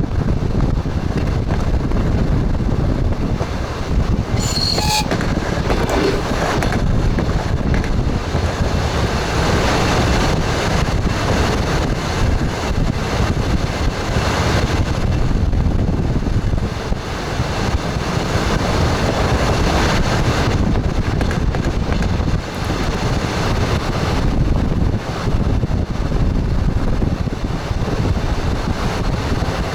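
Express train running steadily along the track, heard from inside its front cab: the wheels rumble on the rails, with a rush of air.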